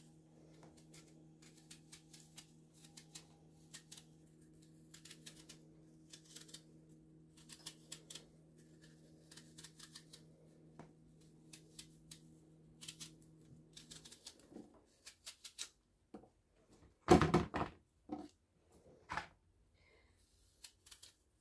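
Small paring knife peeling and cutting an apple: a run of short, crisp clicks and scrapes as the blade works through the skin. A faint steady hum sits under them and stops about two-thirds of the way through, and a brief louder thud comes near the end.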